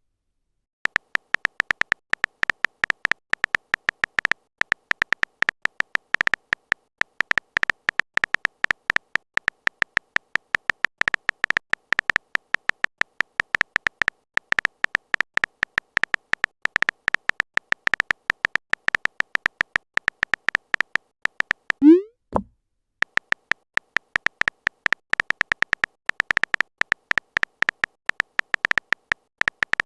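Rapid, even clicking of a chat-app typing sound effect, many short ticks a second, as message text is typed out. About three quarters of the way through the clicking stops for a short pop that drops in pitch, a new-message sound, and then the clicking starts again.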